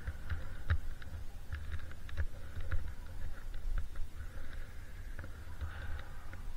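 Skis sliding and scraping over wind-rippled snow, a steady hiss broken by many small irregular clicks, with wind buffeting the microphone as a low rumble.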